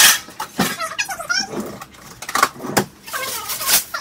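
Metal baking sheet clanking against other pans as it is pulled from a kitchen range's bottom storage drawer, with the drawer sliding and shutting: several sharp knocks and clanks.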